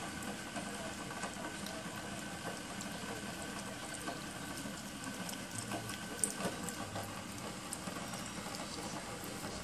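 West Highland white terrier eating from a stainless steel bowl. Soft licking and chewing with small scattered clicks of teeth and tongue against the metal, and a sharper click about six seconds in.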